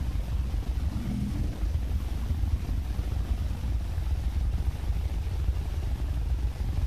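A wooden rolling pin rolling puri dough back and forth on a wooden board, a steady low rumble.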